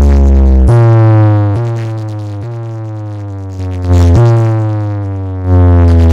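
Electronic music with deep sustained bass notes and a synth tone that keeps sliding down in pitch, restarting every second or so. The bass drops away in the middle, then comes back loud near the end.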